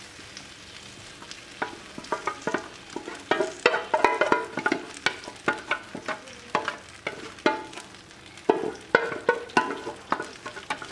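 A spoon scraping and knocking against a saucepan as béchamel sauce is scraped out and poured. It makes a run of irregular clinks and scrapes, some briefly ringing, starting about one and a half seconds in.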